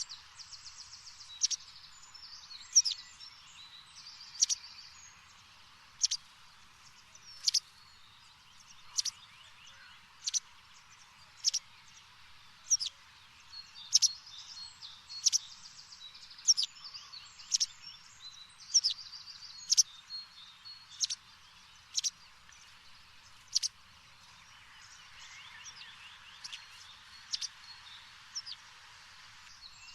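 A bird chirping repeatedly: sharp, high single chirps about every second and a half, with a few quick trills near the start and again after about 25 seconds, over a steady background hiss.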